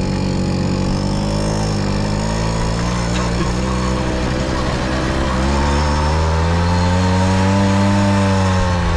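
Tomos A3 moped's small two-stroke engine pulling away and running under way. Its pitch rises about halfway through and eases off again near the end.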